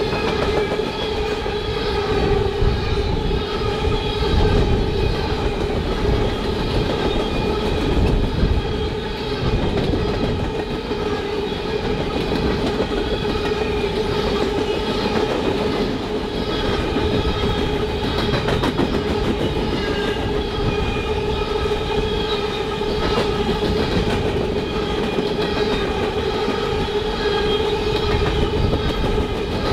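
Norfolk Southern freight train passing: a steady rumble of cars rolling on the rails, with a sustained whine running throughout.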